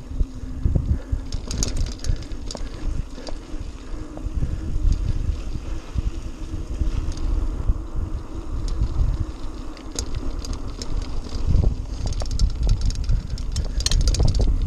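Mountain bike riding over a dirt singletrack: tyres rolling on hard-packed dirt with rattles and clicks from the bike over bumps, under a heavy, uneven rumble of wind on the microphone.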